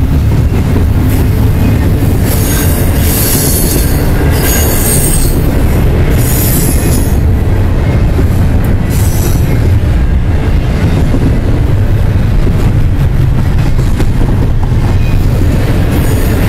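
Double-stack intermodal freight train's well cars rolling past, a loud steady rumble of steel wheels on rail. A few seconds in come several short bursts of high-pitched wheel squeal.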